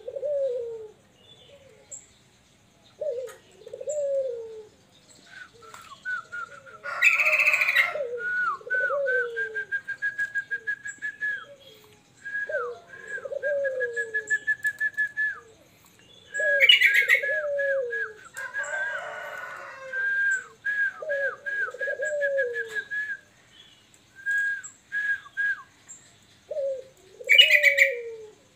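A caged Barbary dove (puter) cooing, low two-part rising-and-falling coos again and again. A smaller caged bird sings over it with rapid runs of high chirps and a few drawn-out whistles. Three short harsh bursts, about ten seconds apart, are the loudest sounds.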